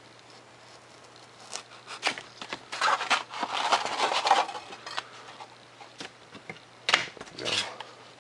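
Sheet of 3 mm Depron foam rustling and creaking as it is handled, loudest a couple of seconds in while a cut-out piece is worked free of the sheet, with a sharp tap and a short rustle near the end.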